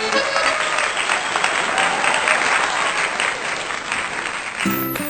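Applause from a crowd, with steady clapping that stops about four and a half seconds in as plucked-string music begins.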